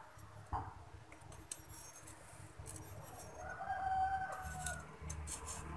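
A rooster crowing once in the background, one held call of about a second and a half starting past the middle. Around it, light clicks and rustles of wires being fitted into a metal motor housing by hand.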